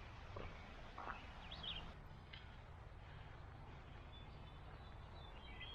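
Quiet woodland ambience: scattered faint bird chirps and a couple of soft footfalls on the trail in the first second or so, over a low, steady background hiss and rumble.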